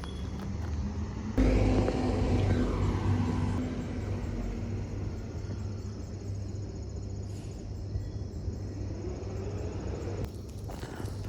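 Low, steady rumble of a vehicle engine, which jumps suddenly louder about a second and a half in, with a falling sweep over the next two seconds, then settles back to an even rumble.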